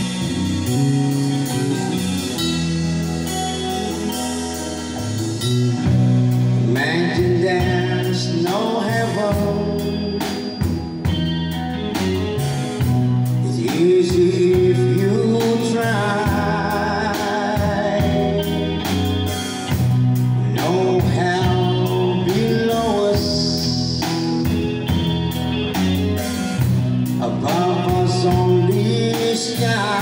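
Live rock band playing: electric guitars over a drum kit, with a man singing lead into the microphone from about seven seconds in.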